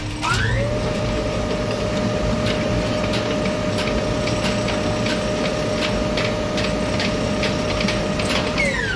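Tower crane's electric drive motor whining up to speed, holding one steady pitch for about eight seconds, then winding down near the end, over a constant low rumble with faint ticking.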